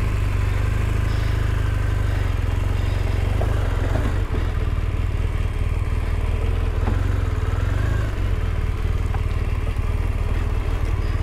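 BMW R 1200 R police motorcycle's boxer twin engine running steadily at low revs as the bike rolls slowly at walking pace.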